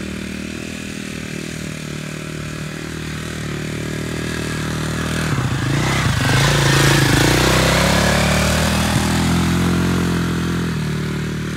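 KTM 450 SX quad's single-cylinder four-stroke engine running as the ATV is wheelied around on its rear wheels. It grows louder as it passes close by about six seconds in, with the revs rising and falling, then fades a little near the end.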